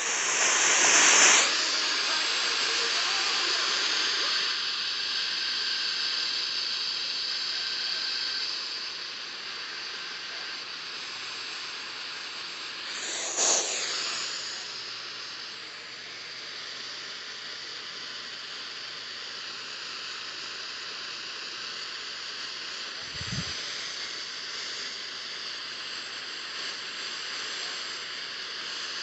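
Radio static: a steady hiss that comes up suddenly at the start, loudest for the first second or so. It surges briefly again about 13 seconds in, and there is a short dull thump near 23 seconds.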